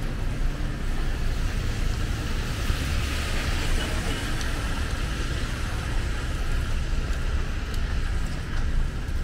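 Road traffic on a rain-soaked street: a steady rumble of cars and motorbikes with tyre hiss on wet asphalt. The hiss swells and fades as a vehicle passes about three to four seconds in.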